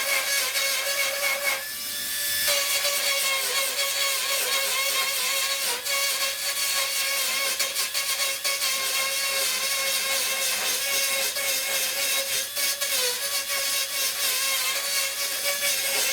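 Small high-speed power tool with a pointed bit grinding rust off sheet metal in the corner of a car door, running at a steady whine; it briefly lets up about two seconds in and then carries on.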